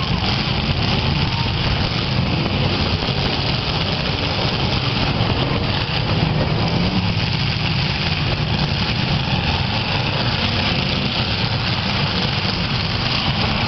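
Engines of several demolition derby cars running and revving together as a dense, steady drone.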